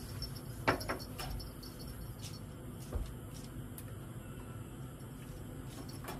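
A few light knocks and clicks from fishing tackle being handled on a raft deck, the loudest about a second in and a low thump near the middle, over a steady low background hum. Insects chirp faintly and fade out about two seconds in.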